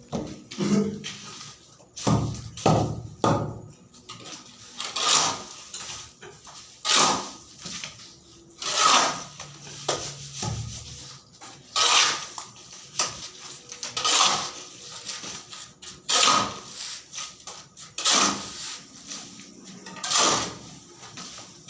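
Repeated strokes of manual work, a noisy scraping or knocking stroke about once every two seconds, with clattering in between.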